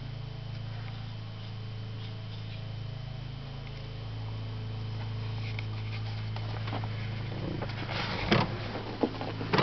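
A steady low hum, with a few short knocks and rustles from handling about eight seconds in.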